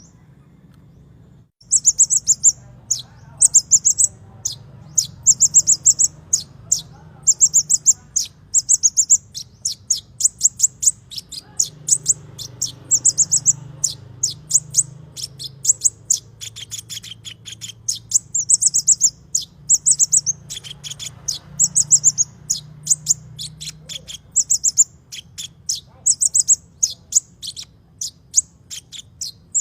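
Konin songbird singing: clusters of very high, rapid chirps repeated about once a second, starting about a second and a half in, over a faint low hum.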